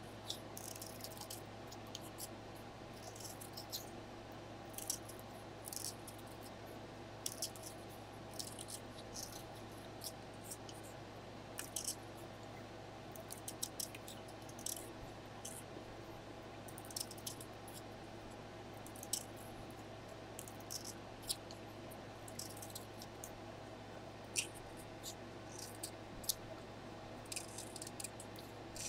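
X-Acto knife blade shaving the wood off a graphite pencil, pushed along by the thumb while the pencil is turned: short, irregular scraping strokes one after another, over a steady low hum.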